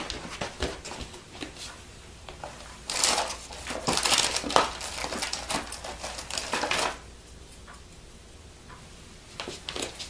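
Someone rummaging and handling things by hand, with rustling and light clicks and clatter. It is loudest from about three to seven seconds in, then drops to a few faint ticks.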